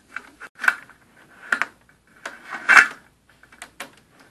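Fan assembly and its metal guard plate being pulled out of an aquarium light fixture's housing: a few clicks and short scrapes of metal against the housing, the loudest a longer scrape a little past halfway.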